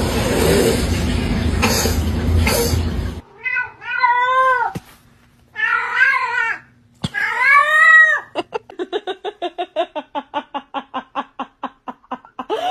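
A domestic cat calling: three drawn-out, wavering yowls, then a rapid stuttering chatter of about ten pulses a second that lasts roughly four seconds. Before the calls, a loud noisy rush runs for about three seconds and cuts off suddenly.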